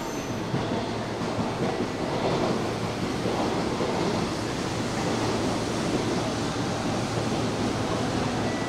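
Hanshin Railway electric train moving along the station platform: a steady rumble of wheels on rails with scattered small clicks, growing a little louder about two seconds in.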